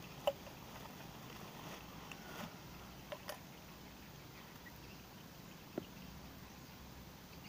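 A few short, sharp clicks and taps from plastic irrigation pipe and fittings being handled while a glued joint is put together, over faint outdoor background. The loudest click comes just after the start, two follow close together about three seconds in, and one more comes near six seconds.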